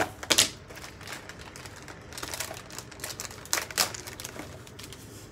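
Hard plastic tub and lid being handled, giving sharp clicks and clacks: a loud cluster at the start, more a little after two seconds, and a loud pair after three and a half seconds. Light rustling of seasoning sachets runs in between.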